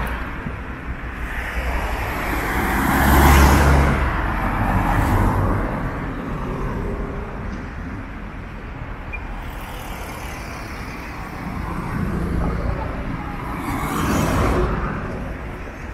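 Street traffic: motor vehicles pass close by, one with a deep engine about three seconds in and a car near the end, over a steady background of city traffic.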